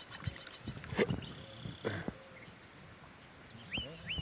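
Small birds chirping: a rapid run of chirps that stops about half a second in, then a few short hooked chirps repeating near the end. Two short knocks come about one and two seconds in.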